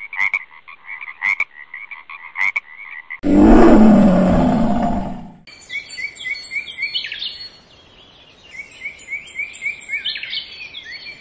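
Animal and bird calls one after another: a run of short repeated calls, then a loud, low, rough call about three seconds in that lasts about two seconds, then birdsong of quick repeated chirps.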